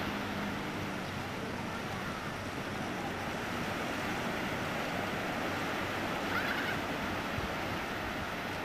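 Steady wash of sea surf on a beach, mixed with wind buffeting the camcorder microphone.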